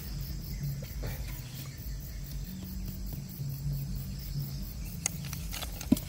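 Crickets chirring steadily in the grass over a low, steady hum, with one sharp knock near the end.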